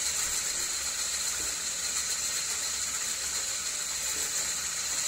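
Hand-held electric stick blender running steadily in a glass bowl, beating liquid cake batter: an even, high-pitched hiss with a low hum beneath.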